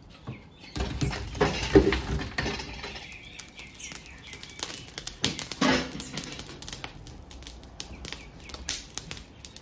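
Hot lump charcoal tipped out of a chimney starter into a steel charcoal rotisserie firebox, clattering onto the bed of coals about a second in. The fresh coals then crackle and pop, with another clatter about halfway.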